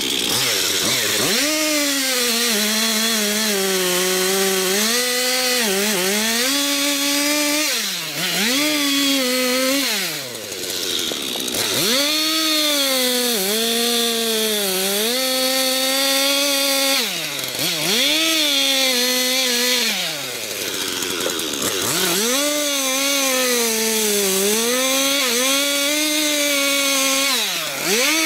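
Chainsaw cutting wood, its engine pitch sagging and wavering under load as the chain bites. About five times the throttle is let off and the pitch drops steeply before revving back up.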